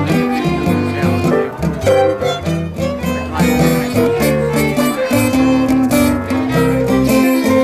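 Live blues played on fiddles over guitar and bass: the fiddles hold and slide between sustained notes while the bass walks underneath.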